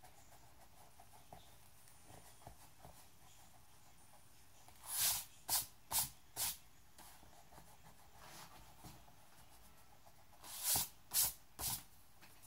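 Pencil drawing on sketchbook paper with faint scratching, broken twice by short, loud hissing sounds: four in quick succession about five seconds in, and three more near the end.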